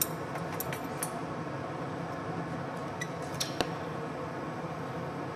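Glassblowing hand tools clinking sharply against glass and the steel blowpipe: several quick clinks in the first second, then two more about three and a half seconds in, over a steady background hum.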